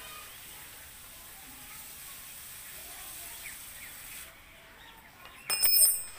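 Faint background hiss with a few faint bird chirps, then near the end a steel spanner clinks against metal and concrete as it is picked up, with a brief metallic ring.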